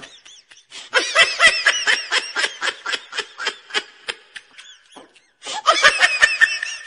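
A person laughing hard in quick, high-pitched pulses. The laughter breaks off for a moment a little past halfway, then starts again.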